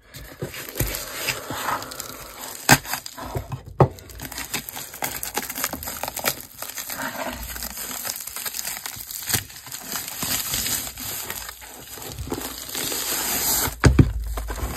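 Plastic courier mailer and plastic wrapping being cut open and pulled off a rolled mouse pad: irregular crinkling and rustling of plastic with sharp snaps and clicks, louder near the end.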